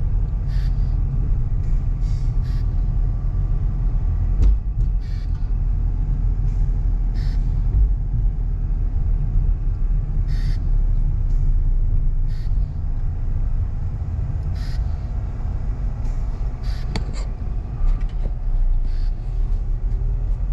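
Steady low rumble of a car's engine and tyres heard from inside the moving car, with scattered light clicks now and then.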